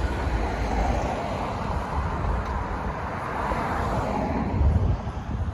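Street traffic: a motor vehicle passes, its engine and tyre noise swelling through the middle and easing off near the end, over a steady low rumble.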